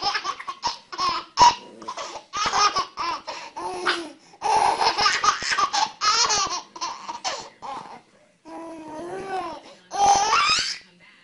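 A baby laughing hard in quick runs of high-pitched bursts, with brief pauses between fits.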